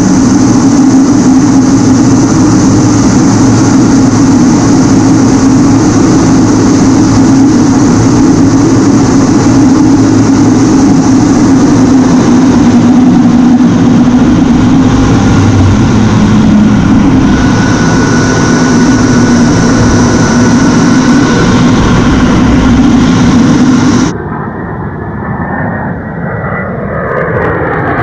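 A-10C Thunderbolt II's twin General Electric TF34 turbofans running steadily and loud, heard inside the cockpit, with a high whine over a low rumble. Near the end it cuts abruptly to the A-10 passing overhead, heard from the ground, quieter, its whine falling in pitch.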